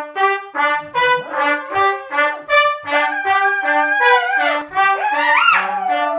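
A trumpet playing a quick tune of short, clipped notes. A dog joins in about halfway with a wavering howl that swoops up near the end.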